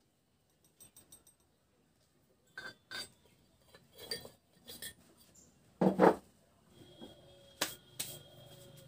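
Steel motor parts and press fittings clinking and knocking as they are handled, in a scattered run of clinks with a heavier double clunk about six seconds in and two sharp clicks near the end.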